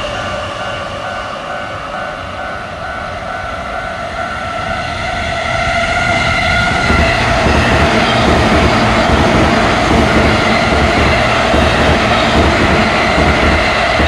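Japanese level-crossing warning bell ringing its repeated "kan kan" throughout, while an electric commuter train arrives and passes from about five seconds in, its running noise rising and staying loud over the bell.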